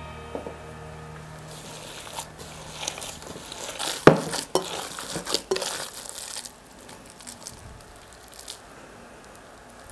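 Gloved hands kneading minced beef and pork in a glass bowl: wet squishing of the meat and crinkling of the gloves, with a few sharp knocks, the loudest about four seconds in. The handling grows quieter after about six and a half seconds.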